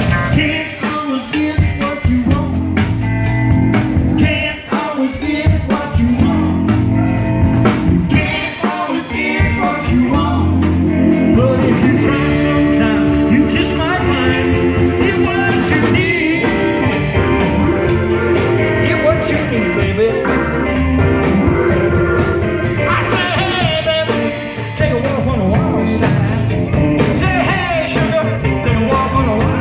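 Live rock band playing: electric guitar, drum kit and keyboards, with a voice singing over them.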